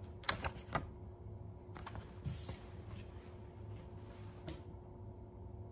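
Paper and fingers handled right against the recording device's microphone: a quick run of sharp clicks near the start, then two stretches of rustling, over a steady low hum.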